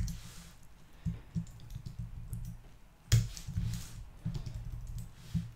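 Computer keyboard keystrokes: a few separate taps, then a quick burst of typing about three seconds in, and more taps near the end.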